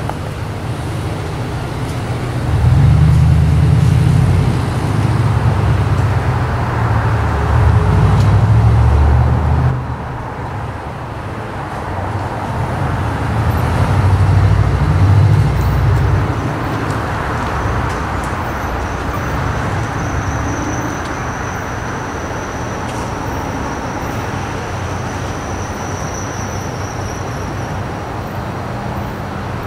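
Outdoor background noise with a heavy low rumble, typical of road traffic, that swells twice, first from a couple of seconds in to about ten seconds and again briefly in the middle, then settles into a steadier, lower noise. A faint high whine comes in during the later part.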